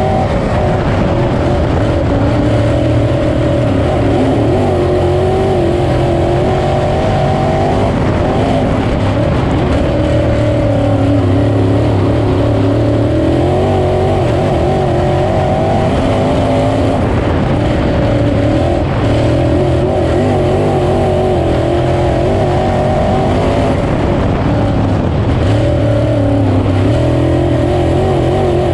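GM 602 crate V8 of a dirt-track Sportsman race car, heard from inside the cockpit at racing speed. The engine note climbs under throttle and drops as the driver lifts for each turn, cycling every five or six seconds.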